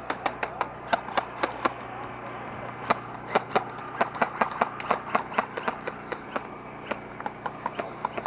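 Scattered sharp clicks and cracks of an airsoft firefight: BBs smacking into wooden cover and airsoft guns firing, irregular, a few per second.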